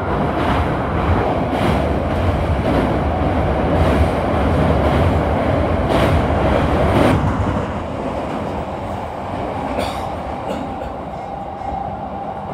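A Keisei commuter train running at speed, heard from inside the leading car: a steady rumble with irregular clacks of wheels over rail joints, loud while it crosses a steel truss bridge. The noise eases a little about seven seconds in.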